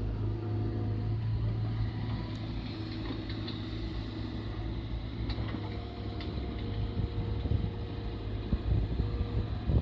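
Mini excavator running steadily while digging fill soil: a low engine hum with higher whining tones coming and going. From about two-thirds in, uneven low thumps grow louder.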